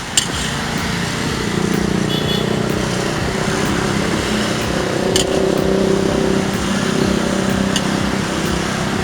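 Road traffic noise with a motor vehicle's engine running close by, steady throughout, and a few sharp clicks or clinks scattered through it.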